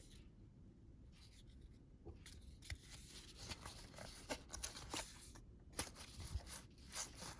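Trading cards being handled and flipped through by hand: faint, irregular soft clicks and light rustles of card stock, a few more frequent after the first couple of seconds.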